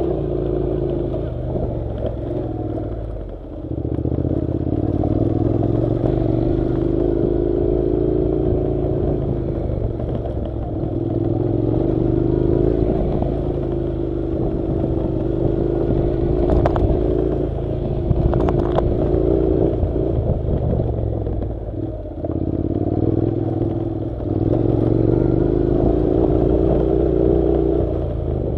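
Honda NC700's parallel-twin engine running at a steady pace on a dirt track, easing off and picking up again several times, with stones and tyre noise clattering underneath and two sharp clicks a little past the middle.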